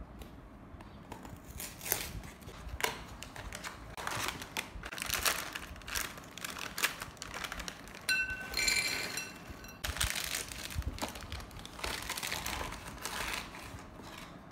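Cardboard cereal box being opened and its plastic inner bag crinkling, then Froot Loops rattling as they are poured into a glass bowl, with a brief ringing about eight seconds in.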